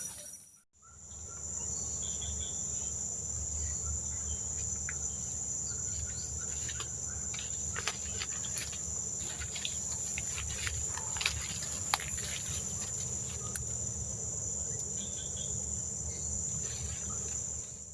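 A steady, high-pitched chorus of insects droning without a break, over a low rumble, with scattered faint clicks and ticks. It drops out briefly near the start and comes back within a second.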